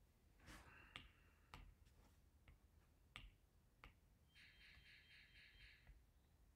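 Faint taps and scratches of a stylus tip writing on a tablet's glass screen: a handful of sharp clicks spread over the first few seconds. A faint high pulsing sound follows a little past the middle.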